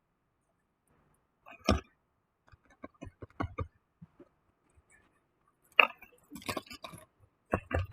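Irregular clicks and knocks of small hard objects being handled: one solid knock, a run of light clicks, then a louder click followed by quick clusters of clicks.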